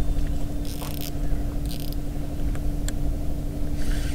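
A boat motor runs steadily with a constant hum and a low rumble, while a spinning reel is cranked to bring in a hooked zander, giving short mechanical scraping and rattling sounds.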